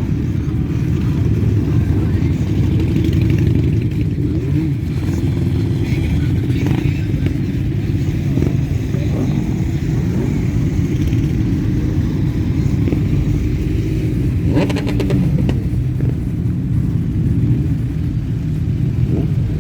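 Many motorcycle engines running together in a steady low rumble, with a brief sharper noise about fifteen seconds in.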